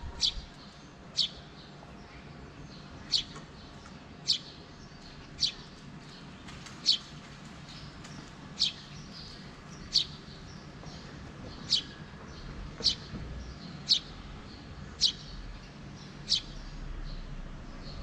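A bird repeating one short, sharp, high call, a quick downward-sweeping note about once every second or so, around a dozen times. A faint steady background hum lies underneath.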